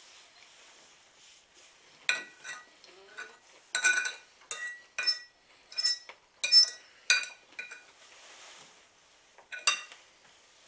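Metal fork clinking and scraping against a ceramic dinner plate: about a dozen sharp clinks, each ringing briefly, from about two seconds in, then one more near the end.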